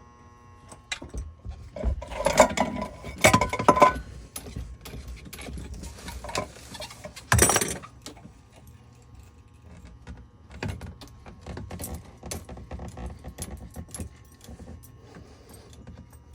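Metal tools and fittings clinking and knocking while a diesel fuel filter is disconnected and removed. A cluster of ringing clanks comes a few seconds in, and a short loud scrape about halfway through.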